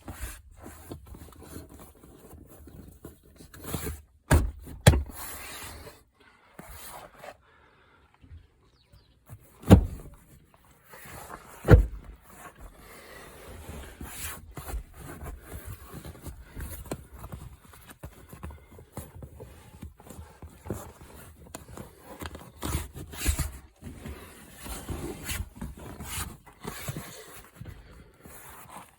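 Scraping and rustling handling noise, broken by a few sharp knocks about four, five, ten and twelve seconds in.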